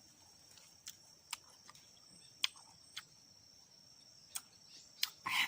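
Scattered sharp crunches of tamarind pods being bitten and chewed, roughly one a second, with a slightly louder crunch near the end. Under them runs a steady high-pitched insect drone.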